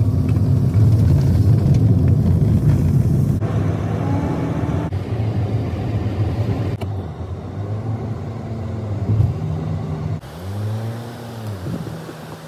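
A motor vehicle's engine running, its pitch rising and falling a couple of times near the end, with the sound changing abruptly several times.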